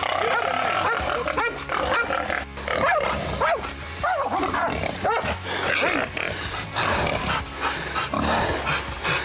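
Hunting dogs barking at a caught wild hog, with the hog squealing and grunting among them: many overlapping calls.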